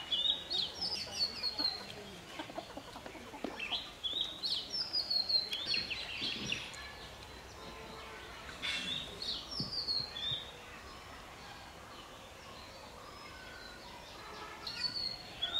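Bird calls: short phrases of high, quickly falling chirps, repeated every few seconds, busiest in the first half, with a lull in the middle and another phrase near the end.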